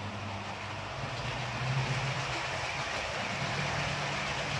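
Model train running along the layout track: a steady hum from the locomotive with the rolling noise of wheels on rail.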